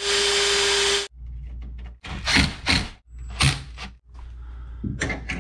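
Cordless drill running at speed for about a second, drilling a new mounting hole, then stopping abruptly. This is followed by a few sharp knocks and clatter from handling the drill and parts.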